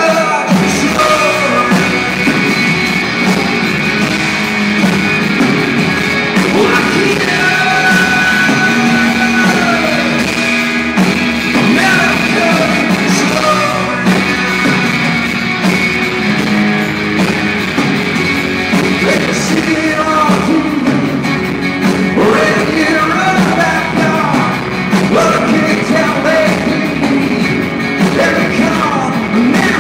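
Live rock band playing a song, with a male lead vocal singing over guitars.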